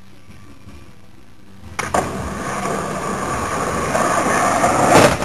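Skateboard wheels rolling on an asphalt street, a steady rumble that grows louder as the rider comes closer. It starts with a couple of clicks about two seconds in and ends with a sharp knock near the end.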